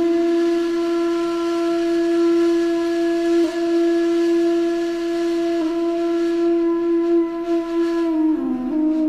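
A flute-like wind instrument holding one long, steady note for about eight seconds, then moving to lower, wavering notes near the end.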